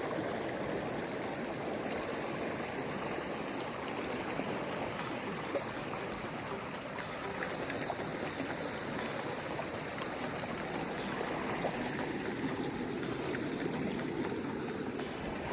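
Big Thompson River's fast water, a steady rush of stream flow through the run.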